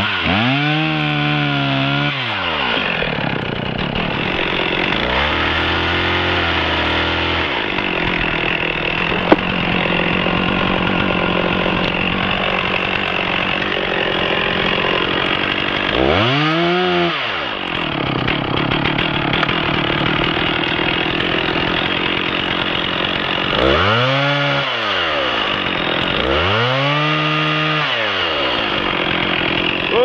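Stihl 460 Magnum two-stroke chainsaw running hard while cutting through a tree trunk, its engine pitch rising and falling several times as the throttle is worked. One sharp click stands out about nine seconds in.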